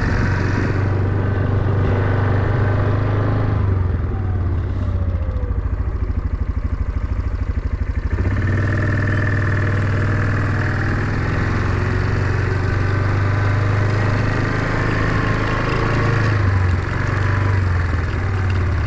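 Small vehicle engine running steadily close by, with a low pulsing hum; its pitch and load shift a few times, around four and eight seconds in and again near the end.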